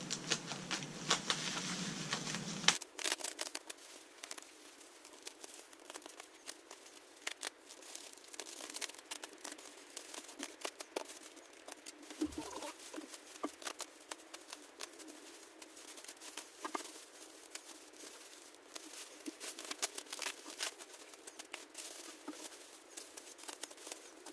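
Packing material being pulled apart and torn by hand to unbox an intercooler: irregular crinkling and tearing throughout.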